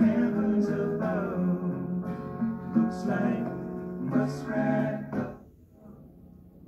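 Guitar music with singing, played from a vinyl record through a wooden cabinet record player's built-in speaker. It drops much quieter about five seconds in.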